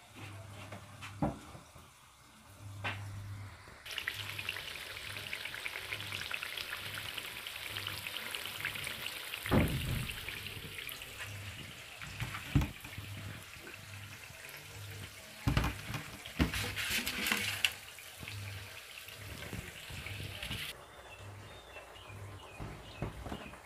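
Kitchen tap turned on about four seconds in, running steadily for some seventeen seconds, then shut off, with several knocks of pots and dishes while it runs.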